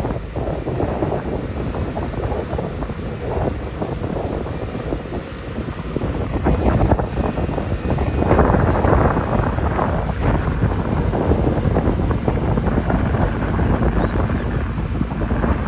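Wind buffeting the microphone over a steady low rumble, louder from about six seconds in.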